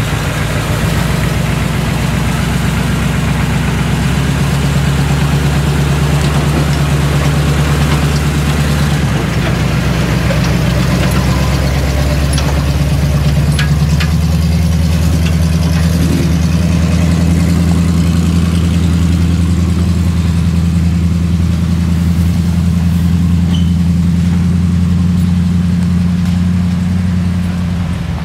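A 4x4 tow truck's engine running steadily at low speed as it crawls along a dirt trail towing a disabled Ford Bronco, its engine note shifting slightly a couple of times.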